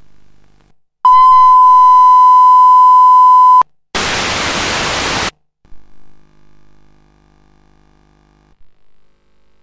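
Analogue satellite TV sound while switching channels: a loud, steady test tone for about two and a half seconds, then a short burst of hiss from an empty channel showing snow. A faint hum follows.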